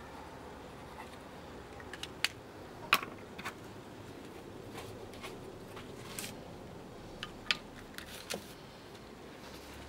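A scattering of short, sharp clicks and taps over a steady low background hiss, the loudest about three seconds in and another cluster near the end.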